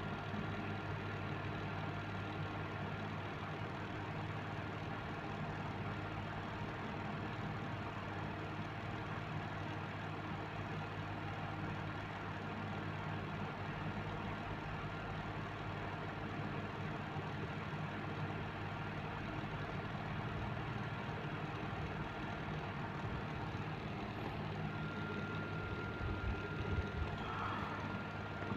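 Steady low background hum with a faint high tone running through it, and a few faint knocks near the end.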